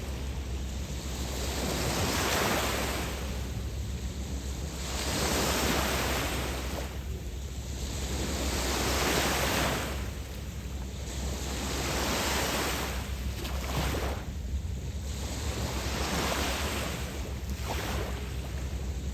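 Waves on Lake Michigan breaking and washing onto the beach, one swell every two to three seconds, over a steady low rumble of wind on the microphone.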